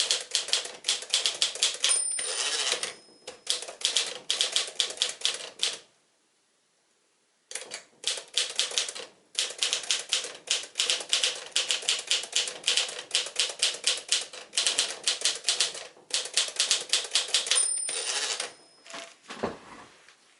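1954 Smith-Corona Silent portable typewriter being typed at a brisk pace, a rapid run of key strikes with one short pause. Twice the margin bell dings and the carriage is swept back for a new line.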